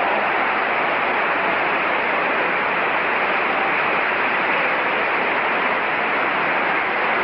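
Large concert audience applauding steadily, a dense even clapping with no music.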